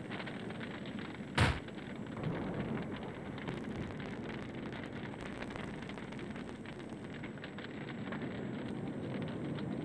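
A single loud bang about a second and a half in, over a steady crackling noise.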